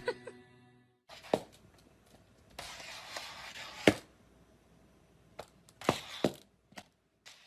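A few light, scattered knocks and taps, with a short stretch of rustling noise in the middle, in a small quiet room.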